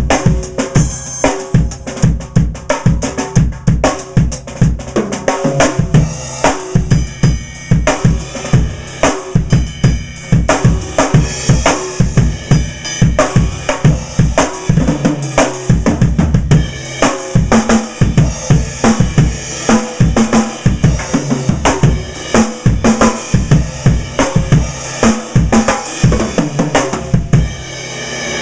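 Pearl Firecracker steel-shell snare drum played with the snares on, at a loosened tuning and without dampening: rapid strokes and rimshots with a lively, ringing snare response. The playing stops a second or so before the end.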